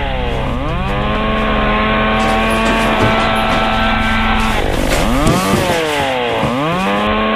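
Two-stroke chainsaw engine running at high revs. Its pitch drops and surges back up twice, as the throttle is let off and squeezed again.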